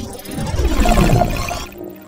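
A loud cartoon sound effect mixed with music, swelling up to about a second in and then cutting off sharply near the end.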